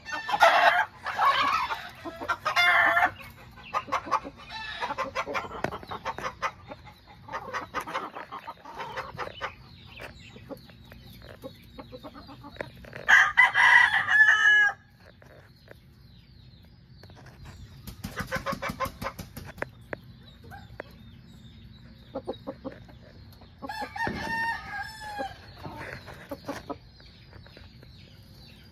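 Game chickens in a pen: a rooster crows several times, with hens clucking in between.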